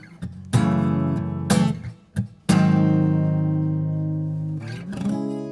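Acoustic guitar playing the song's closing chords: a few quick strums in the first couple of seconds, a strong chord about two and a half seconds in that is left ringing, then one last chord strummed near the end that rings out.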